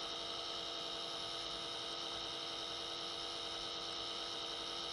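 Steady hum made of several constant tones over a faint hiss, with no change in level.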